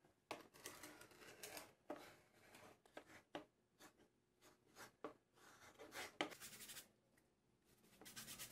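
Stiff-bristled brush scrubbing a foaming cleaner over an old oak tool-box panel: faint, irregular scratchy strokes of bristles on wood, with short pauses between them.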